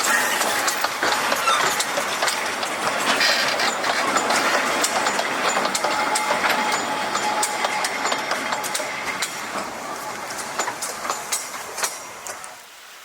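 Narrow-gauge steam locomotive Kč4-332 running along the track, an even hiss of steam with many sharp clicks of wheels over rail joints. It fades slowly as it goes, then drops away sharply near the end.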